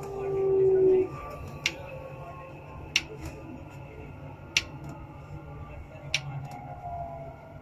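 Electric metro train running under deceleration, its motors whining in tones that slide down in pitch over a steady low rumble. A loud whine swells in the first second and stops abruptly, and sharp clicks come about every one and a half seconds.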